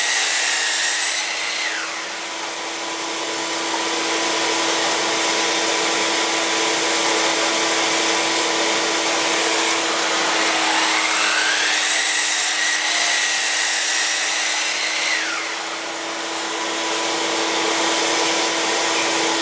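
Miter saw cutting boards to length: the motor winds down about two seconds in, then spins up with a rising whine about ten seconds in, cuts through the wood and winds down again. A steady machine drone with a low hum runs underneath throughout.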